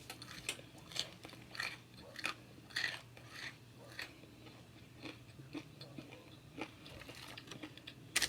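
Close-miked chewing of crunchy Hot Cheetos-coated food, with crisp crunches about twice a second for the first few seconds, then softer, sparser chewing.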